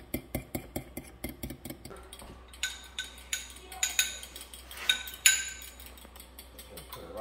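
A metal fork whisking eggs in a bowl: quick, even clicks against the bowl at about five a second, then after about two seconds slower, louder ringing clinks.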